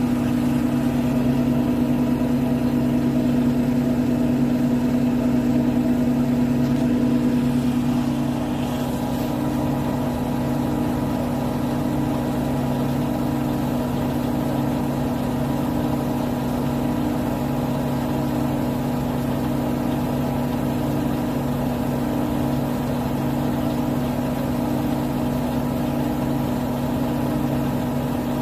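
Bosch WAT28490NL front-loading washing machine spinning on a spin-only cycle set to 1400 rpm: a steady motor and drum hum with a fainter whine above it. About eight seconds in, the whine fades and the sound gets slightly quieter.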